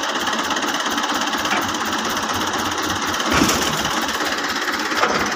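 Diesel tractor engine idling with a fast, even clatter, and a brief knock about three and a half seconds in.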